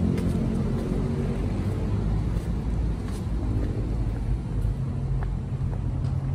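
Steady low outdoor rumble with a few faint ticks over it.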